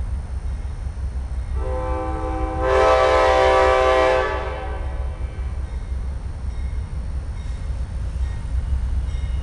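Amtrak Silver Star's locomotive air horn sounding one long chord-like blast of about three seconds, starting about a second and a half in and swelling louder partway through, over a steady low rumble.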